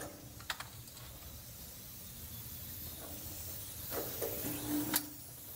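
Chalk scraping along a blackboard in a long wavy line while a wheeled cart rolls across the floor: a steady hiss that builds and grows louder, with a few knocks.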